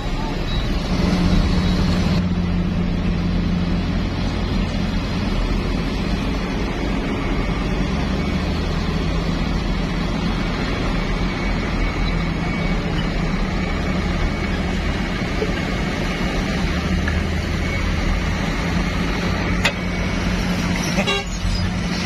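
Heavy diesel dump truck engines running at low revs as a loaded eight-wheel tipper truck creeps across the dirt, the engine note shifting a little as it moves. A faint high steady tone sounds for about the first two seconds.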